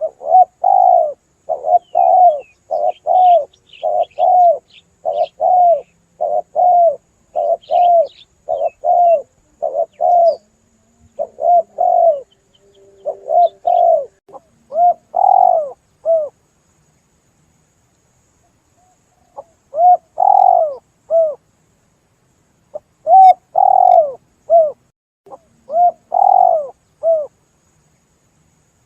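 Spotted dove (tekukur) cooing: a long run of short, arched coos, about two a second, then a pause of a few seconds and three shorter groups of coos.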